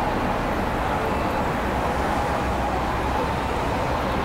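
Steady road traffic noise of a busy city street, with vehicles passing close by.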